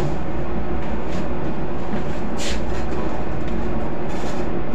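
Steady low rumble of a ship's machinery running, with a few brief handling noises from plastic storage crates about a second, two and a half seconds and four seconds in.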